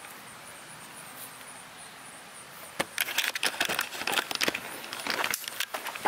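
A faint steady hiss, then about three seconds in a run of crackling clicks and scuffs from footsteps on gritty asphalt and the camera being handled.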